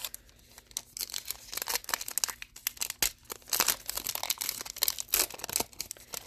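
Foil wrapper of a Panini Illusions basketball card pack crinkling and tearing as it is ripped open by hand, a dense run of crackles starting about a second in.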